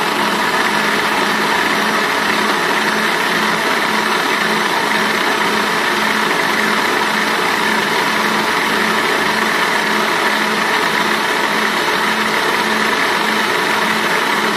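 Electric blender switched on and running steadily at speed, puréeing a red chili sauce in its plastic jar until it turns smooth, with a low pulsing hum under the motor's whir.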